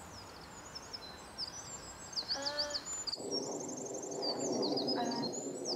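Small birds chirping and twittering with many quick high notes, over a steady outdoor background noise that shifts abruptly about three seconds in.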